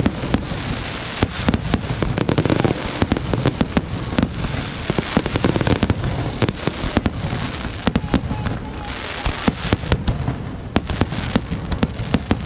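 Fireworks display in a dense barrage: many sharp bangs and crackles come several a second at irregular intervals over a continuous low rumble.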